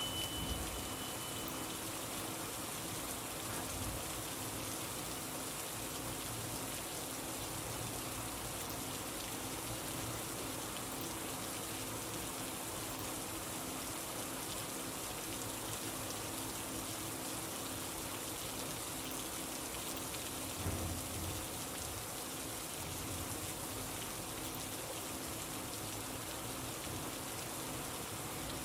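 Steady rain falling, an even hiss of raindrops without a break.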